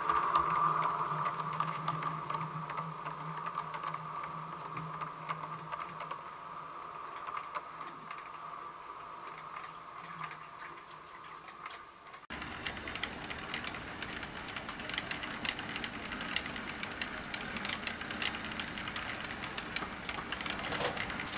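Model train running on the layout: a steady motor hum fades away over the first half with light clicking from the track. After an abrupt change partway through, model coach wheels click busily over the rails as the train passes close by.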